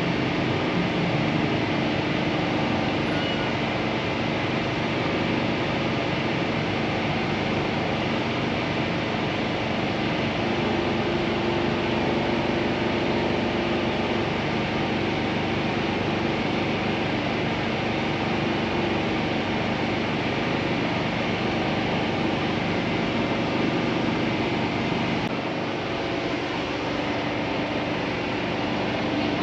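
Steady, even background hum and hiss with no clear events, like constant machinery or distant traffic noise; it changes only slightly near the end.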